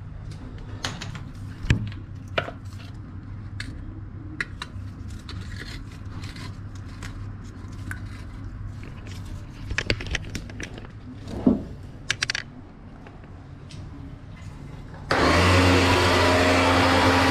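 Scattered clicks and knocks of a steel drain-snake cable being handled and fed into a floor drain. About fifteen seconds in, an electric drain-cleaning machine starts suddenly and runs with a loud, steady hum, spinning the cable to clear the blocked drain.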